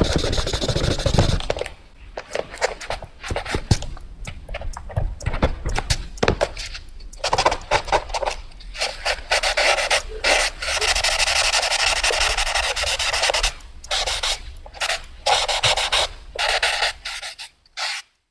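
Fast drawing strokes on paper: quick scratchy strokes, some short and some drawn out, with a longer continuous scribble in the middle. It stops shortly before the end.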